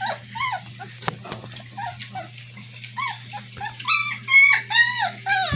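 Young German Shepherd puppies whimpering and squealing for food: a string of short, high cries that each rise and fall in pitch, coming thicker and louder about four seconds in.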